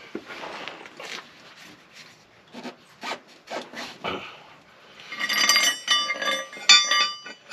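Ratchet straps and the spare-tire hoist under a van being adjusted: scattered rasping and scraping strokes, then a louder stretch of metallic squeaking and clicking over the last two and a half seconds.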